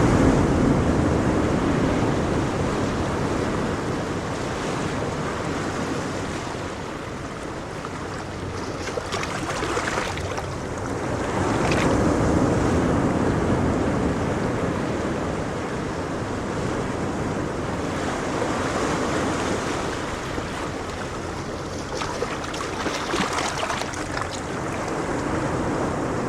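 Ocean waves breaking and washing on a shore, swelling and fading every few seconds, with a crisper splash now and then.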